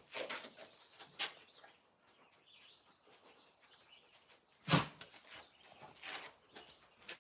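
Scattered short scuffs and clicks of malamute puppies moving about on concrete, with one louder thump a little past the middle. Faint bird chirps are heard behind.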